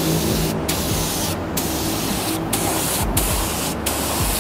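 Compressed-air spray gun spraying epoxy primer, a steady hiss that stops briefly several times as the trigger is let off and squeezed again.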